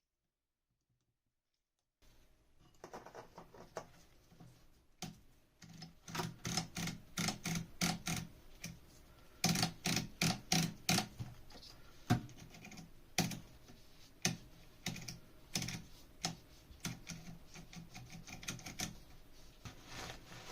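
Irregular clicking and tapping, several strokes a second, starting about two seconds in after dead silence.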